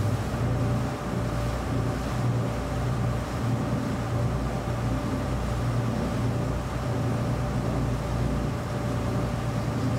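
Boat engine running steadily, a low continuous drone.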